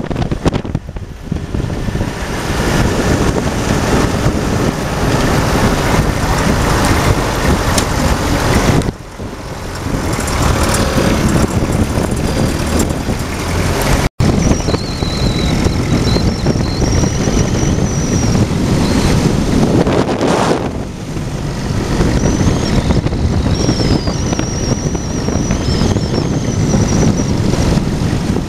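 An M151A2 military jeep driving on beach sand, its four-cylinder engine running under heavy wind buffeting on the microphone in the open vehicle.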